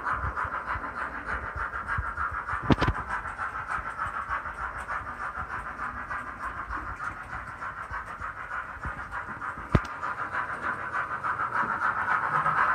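DCC sound decoder in an OO gauge GNR Stirling Single model steam locomotive playing a steady, quick rhythm of exhaust chuffs as the train runs, growing louder near the end. Two sharp clicks stand out, one about three seconds in and one near ten seconds.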